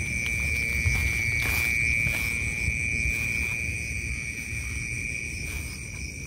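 A night insect's steady, high-pitched trill, unbroken throughout, over a low rumble.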